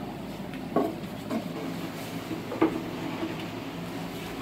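Wooden knocks as beehive boxes, frames and a hive drawer are handled: three short clunks, about a second in, a moment later and past the middle, over a steady low hum.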